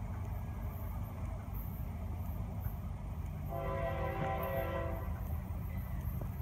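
Locomotive air horn of an approaching freight train, not yet in sight, sounding one blast of about a second and a half as a chord of several notes, about three and a half seconds in, over a steady low rumble. The horn is sounded for the grade crossing.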